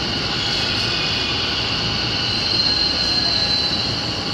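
Electric train standing at a station platform: a steady high whine from its onboard equipment over a low station rumble. A tone near the top of the whine grows stronger for a second or so midway.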